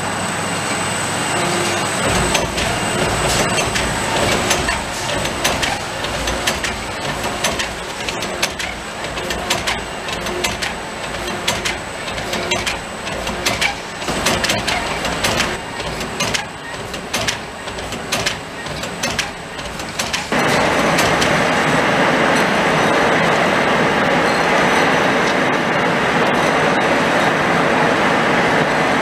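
Shrink-wrap packaging machinery running: the infeed conveyor and film side-sealer clatter with frequent sharp clicks and knocks. About 20 seconds in, the sound switches abruptly to a steady rushing noise from the shrink tunnel's hot-air blower.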